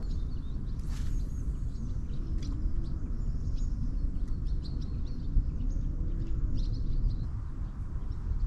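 Small birds chirping and calling over a steady low rumble, with one short sharp noise about a second in.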